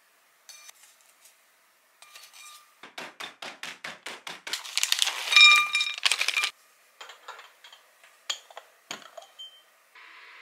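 Kitchen handling sounds: a few light clicks of chopsticks on a wire grill rack, then a plastic snack packet of mixed nuts being scrunched and crinkled as the nuts are crushed, with a quick run of crunches and a loud crackling. After that, pieces of nut tick sharply onto a ceramic plate.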